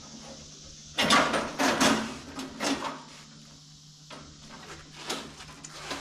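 New steel band blade being worked by hand onto the band wheel of a Wood-Mizer LT35 sawmill: a loud run of metal scraping and rattling for about two seconds, then lighter knocks, with one sharp clack about five seconds in.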